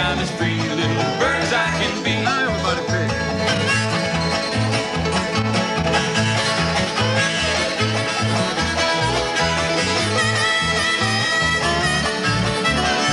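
Old-time string band playing an instrumental break: clawhammer banjo and acoustic guitar over a steady bass beat, with slide guitar gliding between notes.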